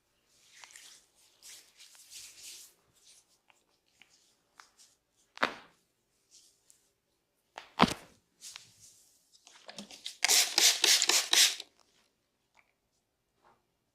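Head massage by hand: soft rubbing of hands over skin and hair, two single sharp slaps or cracks, then a quick run of about ten hand strikes, about six a second, for under two seconds, typical of massage chopping or tapping on the head.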